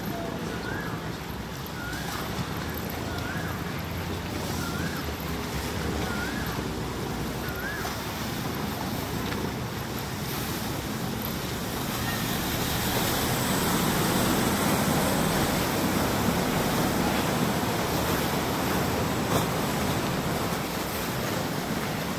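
Wooden canal taxi boat passing close by: its engine running and the water it churns washing along the canal, with wind on the microphone, growing louder for several seconds past the middle. In the first eight seconds a short rising-and-falling call repeats about once a second, about seven times.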